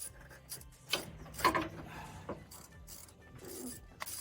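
Socket ratchet wrench clicking in short irregular strokes while turning a bolt, with metal tool knocks; the loudest knock comes about a second and a half in.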